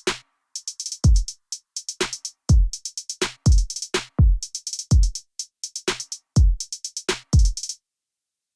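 Background music: an electronic drum-machine beat of deep, falling kick drums and quick hi-hat ticks, about two kicks a second. It stops shortly before the end.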